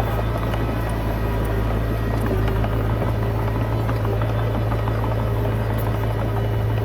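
Komatsu D20P bulldozer's diesel engine running steadily under load, a deep even drone with scattered light clanks over it.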